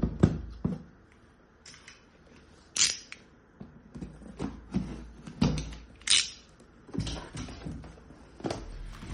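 Plastic toy weapon parts and packaging being handled: irregular clicks and knocks, a few with a brief rustle.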